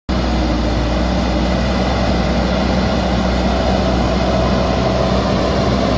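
A heavy engine running steadily: a loud, even, deep drone that does not change in speed.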